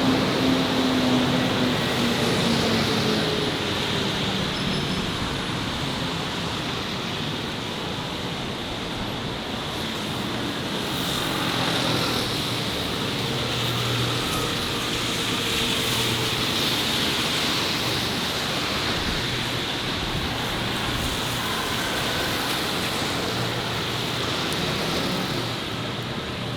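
Steady city-street traffic, with cars and motorbikes passing. An engine tone fades away over the first couple of seconds.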